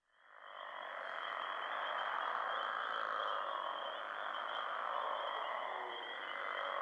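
A steady, high trilling chorus of calling animals over a soft hiss, fading in about half a second in and holding even throughout.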